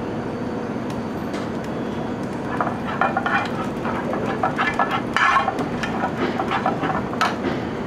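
A metal spoon scraping and clicking against a nonstick frying pan as sauce is stirred, in irregular strokes from a couple of seconds in until near the end. Under it runs a steady rushing noise from the lit gas burner and the kitchen.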